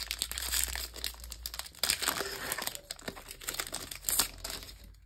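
Foil wrapper of a Magic: The Gathering Zendikar Rising draft booster pack being torn open and crinkled by hand: a dense run of crackling with sharper rips about two seconds in and again near the end.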